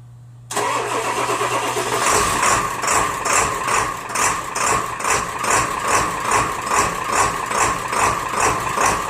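Diesel truck engine cold-started after one glow-plug cycle on new glow plugs: the starter cranks from about half a second in, the engine catches about two seconds in and settles into idle with a regular pulse a little under twice a second. It fires up readily, the hard cold start cured.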